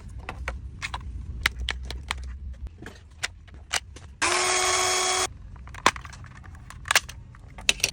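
Clicks and knocks of the Bosch EasyPump being handled and its button pressed. About four seconds in, its small compressor motor spins up and runs steadily for about a second, then stops.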